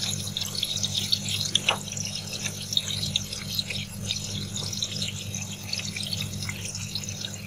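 Zucchini slices shallow-frying in hot oil: a steady sizzle with dense crackling, with a few clicks as a metal fork turns the slices in the pan. A low steady hum runs underneath.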